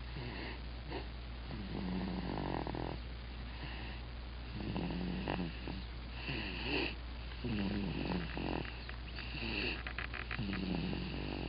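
A sleeping baby snoring loudly, about five snoring breaths, one every two seconds or so, over a steady low hum.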